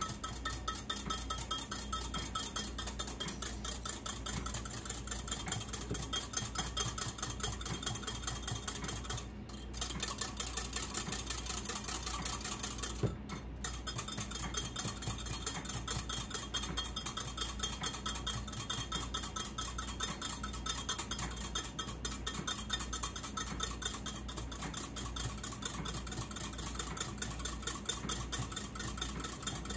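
Small wire whisk beating against a bowl in a fast, steady rhythm, stirring Jell-O powder until it dissolves. It pauses briefly twice, about nine and thirteen seconds in.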